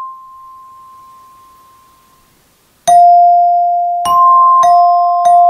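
Metallophone tone bars on resonator boxes: the high Do (C) bar rings on and fades away, then after a short pause a mallet strikes the Fa (F) bar, then the Do bar, then the Fa bar twice more. The struck notes ring over each other.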